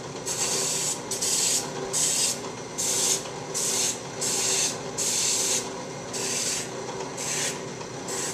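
Drill press spinning a coarse-grit flexible sanding pad against a wooden bowl to shape its base: a steady motor hum with a rasping hiss that swells about once a second as the wood is pressed onto the pad in repeated strokes.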